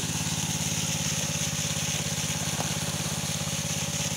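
Small engine running steadily with a fast, even pulse, under a steady high hiss.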